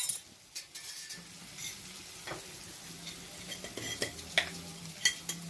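Steel spoon clinking a few times against an earthen pot while onions, garlic and tomatoes fry gently in oil with a faint sizzle. The sharpest clink comes right at the start; a low steady hum runs underneath from about a second in.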